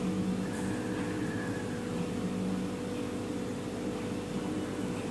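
Steady low hum with a constant tone, like a running motor or appliance.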